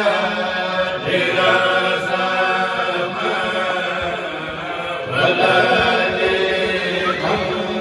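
A group of men chanting a Mouride khassaid, an Arabic devotional poem, together into microphones. Their voices hold sustained, melodic lines without a break.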